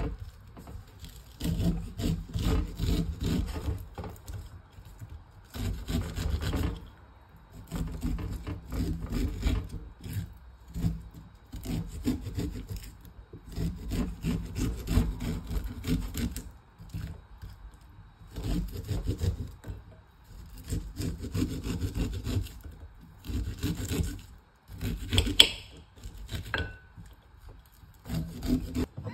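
Kitchen knife cutting fresh corn kernels off the cob into a bowl: bursts of quick rasping, sawing strokes with short pauses between them.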